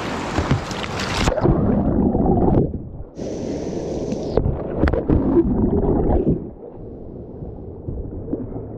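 Whitewater rushing, then about a second in the sound turns suddenly muffled into low underwater gurgling and rumbling as the whitewater kayak rolls over and the microphone goes under water. It stays muffled through the roll for several seconds, then settles to a quieter water sound near the end.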